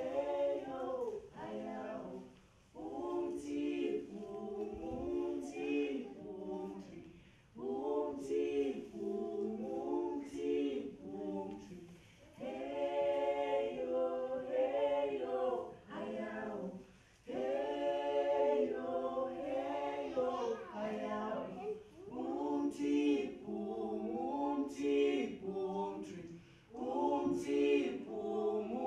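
A small group of mixed male and female voices singing a cappella in harmony, in phrases of about four to five seconds with short breaks between them.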